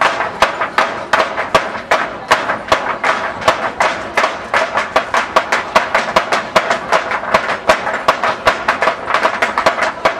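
Flamenco footwork (zapateado): several dancers' shoe heels and soles striking the stage floor in a fast, even rhythm, several strikes a second.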